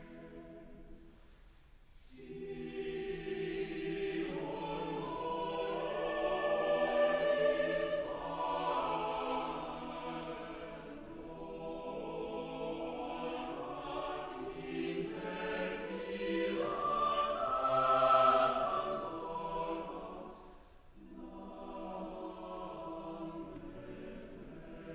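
Choir singing in several-part harmony. The phrases swell to their loudest twice and fall back, with short breaks between phrases about two seconds in and again near the end.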